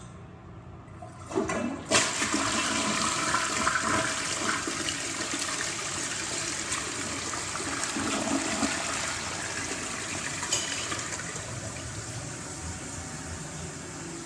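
Crane Plumbing Galaxy toilet being flushed: a clunk of the handle and flush valve about a second and a half in, then a loud rush of water that slowly tapers off and is still running at the end.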